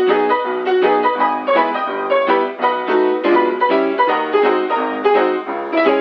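Background piano music with a quick, busy run of notes.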